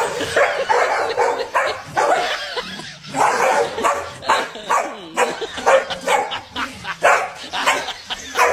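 A corgi and a larger golden-coated dog barking at each other, a quick, continuous run of short barks.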